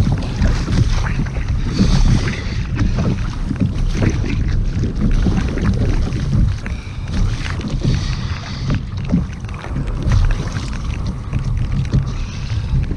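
Strong wind buffeting the microphone on a fishing kayak at sea, rising and falling in gusts, with choppy waves washing against the kayak's hull.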